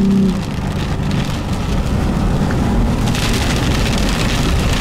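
Heavy rain pelting the windshield and roof, heard from inside a vehicle cabin, with steady road and wind noise underneath. A steady tone cuts off right at the start, and the hiss of the rain grows brighter about three seconds in.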